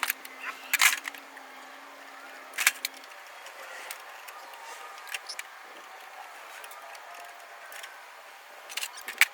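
Scattered sharp clicks and clanks of a microwave oven being taken apart, loudest about a second in and near the end, with a steady low hum for the first three seconds.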